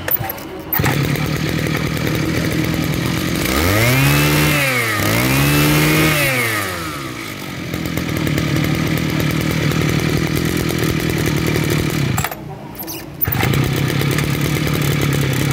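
Mitsubishi TL33 two-stroke brush-cutter engine running on a test after cleaning. It idles steadily and is revved up and back down twice in quick succession, then returns to idle. The sound drops out briefly about twelve seconds in.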